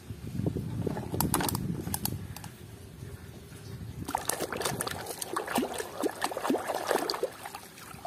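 Water sloshing and splashing in a plastic basin as muddy plastic toys are swished and rinsed by hand, with a few sharp knocks of plastic toys about a second in.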